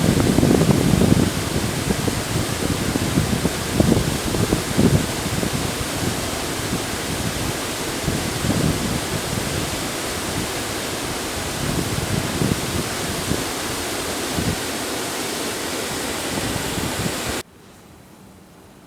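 Steady rush of flowing river water, with irregular gusts of wind buffeting the microphone. A little before the end it cuts off abruptly to a faint hiss.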